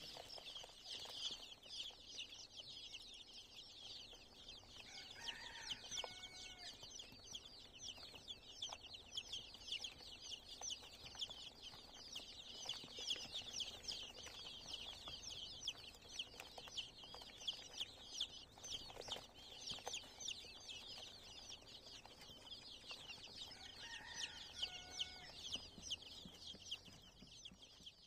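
A crowd of ten-day-old Rhode Island Red chicks peeping continuously in rapid, high cheeps. A lower two-part call sounds twice, about five seconds in and again near the end.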